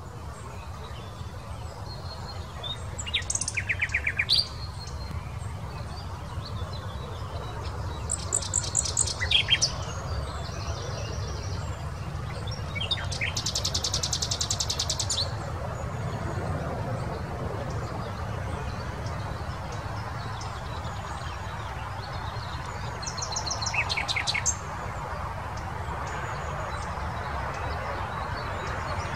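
Common nightingale singing in separate phrases a few seconds apart, some of them fast trills of rapidly repeated high notes, others short whistles and sharp notes, over a steady low rumble.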